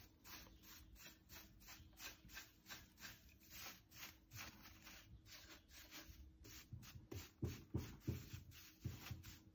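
Faint, quick brushing: a paintbrush sweeping loose flakes of gold leaf foil off a drawer front, several light strokes a second, with a few soft knocks near the end.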